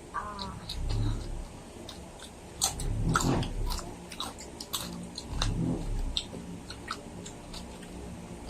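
Close-up chewing and crunching of crispy lechon kawali, deep-fried pork belly with crackling skin, with a quick run of crisp crunches a few seconds in.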